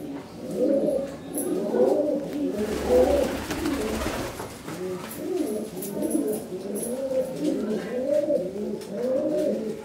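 Domestic pigeons cooing over and over, several birds overlapping, each coo rising and falling in pitch. A brief rustling noise comes about three seconds in.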